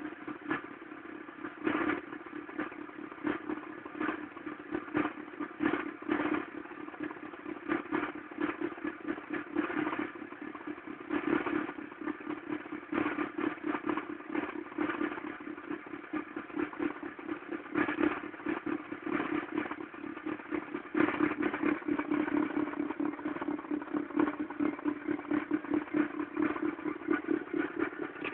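Mk3 1.4 single-point-injection petrol engine running with a steady hum and irregular, uneven clattering on top: a rough, 'tractor sound' that the owner takes for a bad engine sound.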